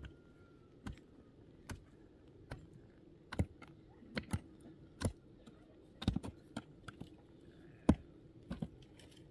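Hand digging tool striking the ground over and over, in sharp, irregular knocks about one to two a second.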